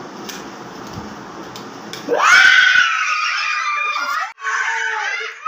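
A few faint clicks, then about two seconds in a child breaks into loud, high-pitched screaming, breaks off for a moment just past four seconds, and screams again.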